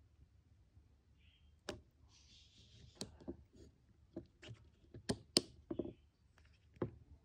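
Sharp, uneven clicks as the power button on a WOWSTICK gluer is pressed again and again, about ten in all, with a brief rustle about two seconds in. The gluer charges but won't switch on.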